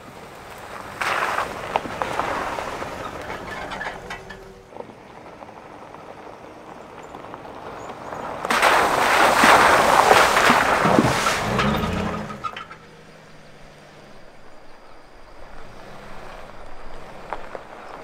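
Pickup truck driving past on a dirt and gravel trail, its tyres crunching over stones as the engine runs. There are two passes: a shorter one about a second in, and a louder, closer one from about eight seconds in that cuts off sharply around twelve seconds.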